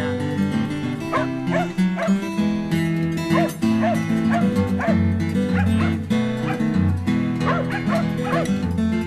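An Australian Kelpie barking repeatedly in short barks over instrumental music.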